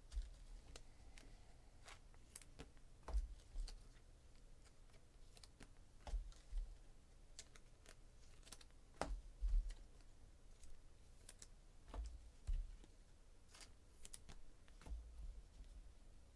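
Trading cards being handled and set down on a table: faint scattered clicks and soft thumps every two to three seconds.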